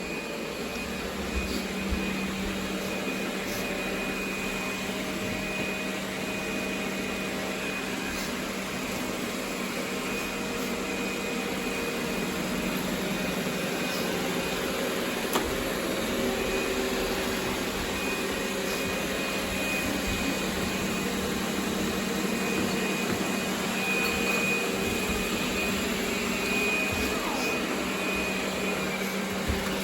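Robot vacuum running steadily, its motor a constant hum with a thin high whine above it.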